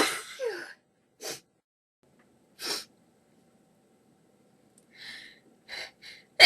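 A person in a sneezing fit: a sneeze as it begins, a couple of short breaths, then a run of quick gasping inhalations that build to another loud sneeze near the end.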